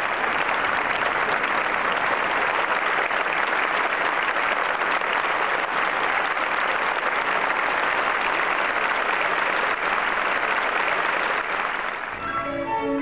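Concert-hall audience applauding steadily. About twelve seconds in the applause stops and a symphony orchestra starts playing, strings to the fore.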